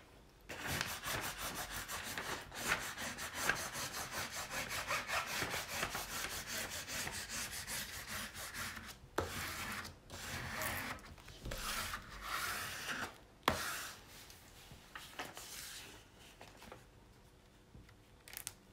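Hands rubbing over a diamond painting canvas and its plastic cover film: a fast run of rubbing strokes for the first half, then shorter rubs. There is a sharp knock about two-thirds of the way through.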